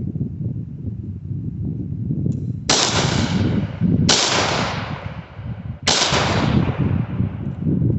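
Three shots from a Springfield Armory 1911 pistol, about a second and a half apart, each with an echo that fades out over about a second. A steady low rumble runs underneath.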